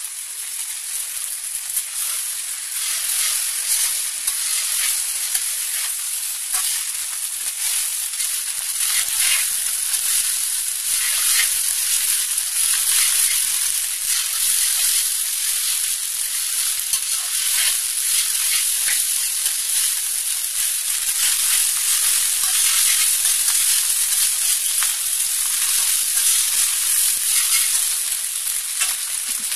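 Rice and vegetables sizzling as they are stir-fried over a high flame in a kadai, with a steel spatula scraping and clicking against the pan as it stirs. The sizzle builds over the first few seconds, then holds steady.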